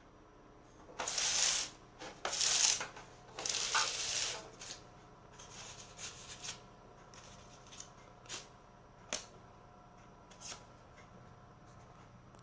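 Hands rustling and handling something: three loud rustles in the first few seconds, then fainter rustling and a few light clicks and taps.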